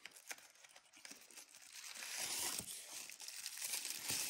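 Tissue paper crinkling and rustling as it is unwrapped by hand from a small item, growing louder from about two seconds in, after a few light clicks of a small cardboard box being opened.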